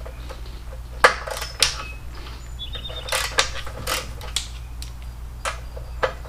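Hand tool clinking against metal in a few irregular sharp clicks and knocks, as it is set on and worked at the 6 mm pinch bolt of a motorcycle's front fork.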